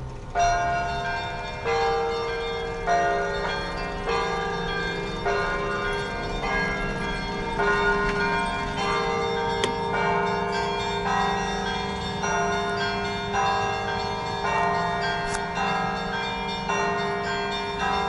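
Orthodox church bells ringing a full peal: many bells of different pitches chiming together, with the loudest strikes coming a little more than once a second.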